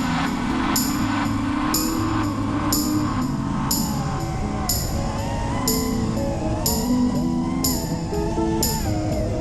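Music track with a steady beat, about one drum hit a second, under a gliding melody.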